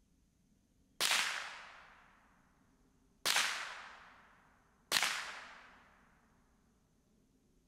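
Three shots from a Ruger 10/22 .22 LR rifle, each a sharp crack that dies away in an echo over about a second and a half. The shots are about two seconds and then a second and a half apart.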